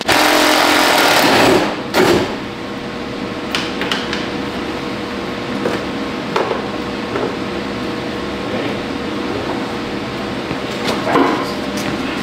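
A loose steel truck hood being handled and test-fitted: a loud scraping rush lasting about a second and a half, then a steady hum with a few light knocks and clunks as the hood is set onto the truck.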